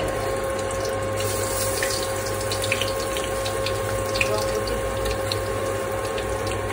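Minced garlic sizzling in hot coconut oil in an aluminium wok, the sizzle starting about a second in as the garlic goes in, with scattered small crackles and pops over a steady hum.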